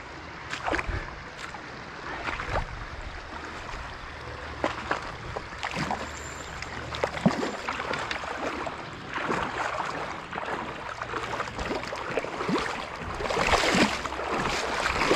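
A hooked brown trout splashing and thrashing at the surface of a shallow stream as it is played in, over the running water. The splashing grows louder near the end as the fish is scooped into a landing net.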